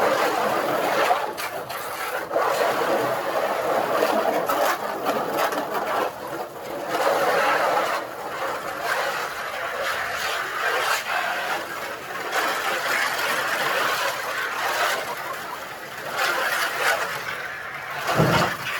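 Water running from a garden hose into a small plastic swimming pool, a steady rush that rises and falls in strength, with a low thump near the end.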